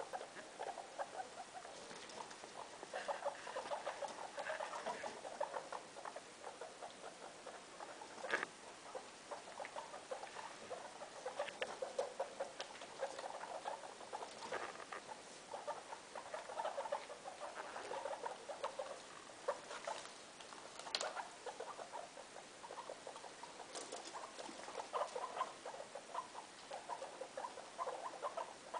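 Guinea pigs making soft, rapid chattering calls that run on throughout, with a few sharp clicks.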